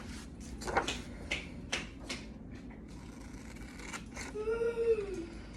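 Scissors snipping through construction paper, a few separate snips with paper handling. Near the end, a short high voice sound rises and falls.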